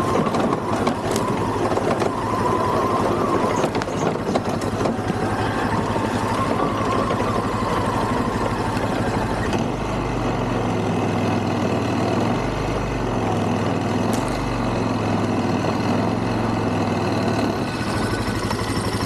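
Polaris Sportsman ATV engine running as the quad is ridden slowly over snow, its low rumble swelling about halfway through.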